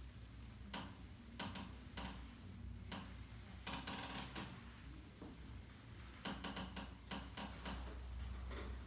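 Irregular soft clicks and taps, several in quick runs, over a low steady hum.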